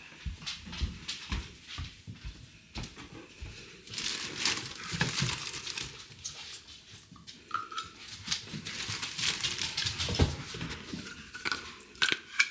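Household handling sounds: scattered knocks and clicks, with a plastic bag rustling and crinkling through the middle. A dog moves about and jumps up near the end.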